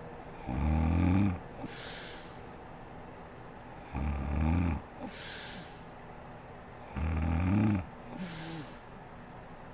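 A sleeping woman snoring: three loud, low rattling snores about three seconds apart, each followed by a breathy exhale.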